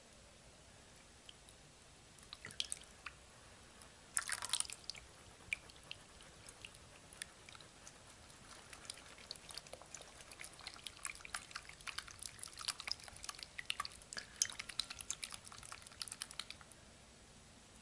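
Wet, sticky squelching and dripping as a hand squeezes and kneads freshly forming slime of clear red glitter glue and borax water. It starts as a few scattered squishes, with a short burst about four seconds in, and turns into a dense run of small squelches in the second half that stops shortly before the end.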